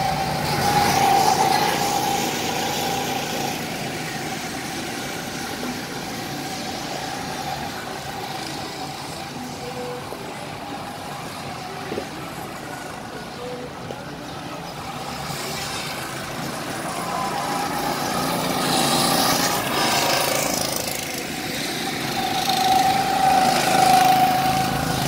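Go-kart engines running as karts circle the track, a steady engine drone that swells as karts pass close, about a second in, again past the middle, and near the end.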